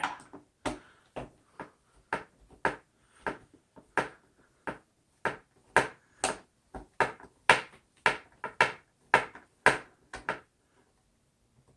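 A screwdriver driving screws into a small plastic speaker housing: a run of short clicks and scrapes at about two a second, one for each turn. They stop about a second before the end as the screws seat tight.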